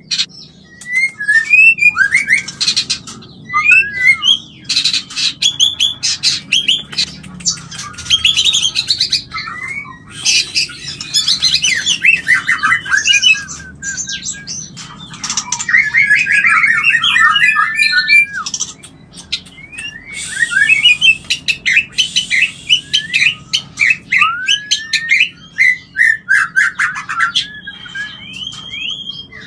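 White-rumped shama (murai batu) singing a fast, varied song of whistled notes that glide up and down, rapid trills and sharp clicks, in phrases broken by short pauses: the courtship call used to bring shamas into breeding condition.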